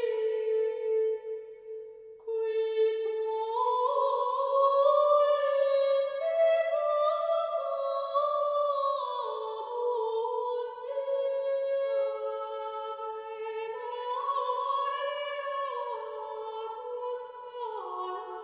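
Background music: a slow, gentle solo melody in a high register with held, gliding notes and no beat, pausing briefly about two seconds in.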